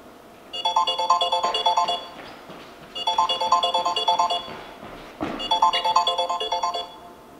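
Smartphone ringing: a quick, melodic ringtone phrase played three times with short pauses between. There is a thump about five seconds in.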